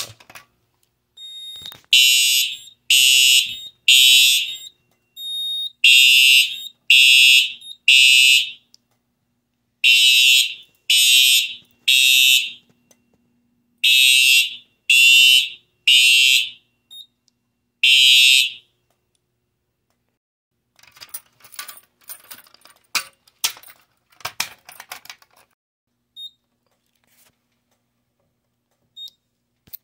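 A pull station clunks as it is pulled, then a System Sensor TrueAlert fire alarm horn sounds in the temporal-3 evacuation pattern. It gives three short, high-pitched blasts, then a pause, for four rounds, and stops after one more blast when the alarm is silenced. Light handling clicks and rattles follow.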